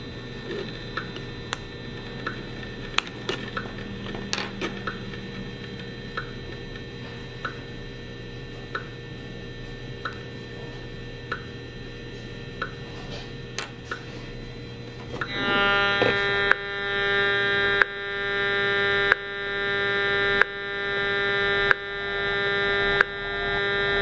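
EMFields Acoustimeter RF meter sounding the radio pulses of a wearable fitness band through its speaker. At first it gives faint regular ticks about every 1.3 seconds over a low hum. About 15 seconds in, a loud harsh buzz starts, swelling and breaking off on the same 1.3-second beat as the pulses max out the meter.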